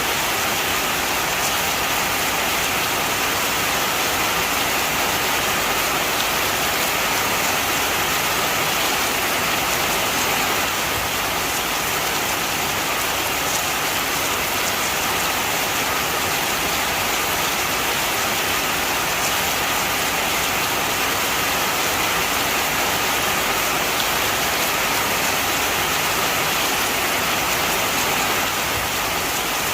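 Heavy rain falling steadily, an even hiss of drops with faint scattered ticks of individual drops hitting a surface.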